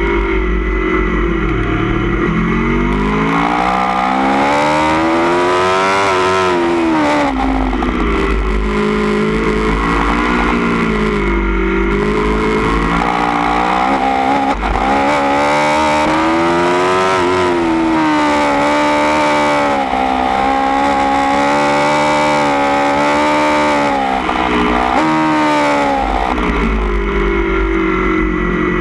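2016 Aprilia Tuono V4 1100 Factory's V4 engine, breathing through a baffled Austin Racing GP1R aftermarket exhaust, revving hard and dropping back over and over as the rider accelerates, shifts and brakes. There is a long, fairly steady high-rev stretch in the middle.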